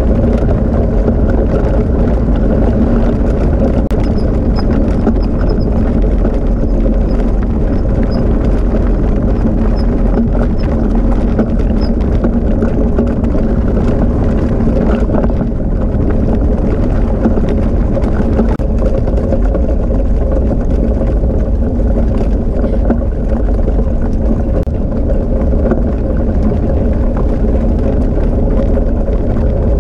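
Steady rumble with a constant hum from the dog-training rig rolling along a wet dirt track behind the sled-dog team.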